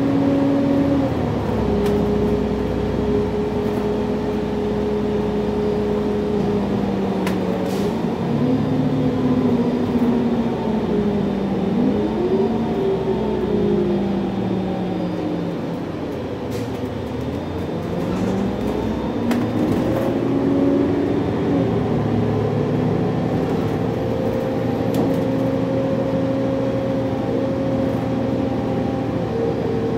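City transit bus's engine and drivetrain heard from inside the cabin, a running tone that falls to its lowest about halfway through as the bus slows, then rises again and levels off as it picks up speed, with a few light rattles.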